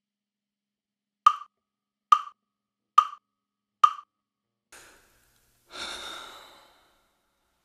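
Metronome-style count-in: four evenly spaced wood-block clicks, about one every 0.85 seconds, setting the tempo for an acoustic guitar song. Near the end a short breath follows.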